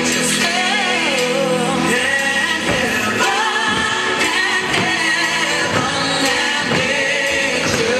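A song with singing, played over a PA loudspeaker as dance music.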